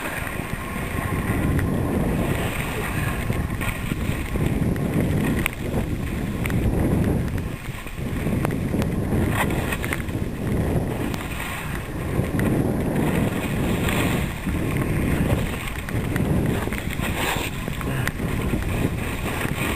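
Wind buffeting the microphone of a camera carried by a moving skier, mixed with skis scraping over packed snow, swelling and easing every second or two.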